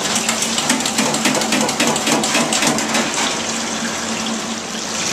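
Tempura-battered shrimp deep-frying in a commercial fryer: the oil sizzling and crackling steadily.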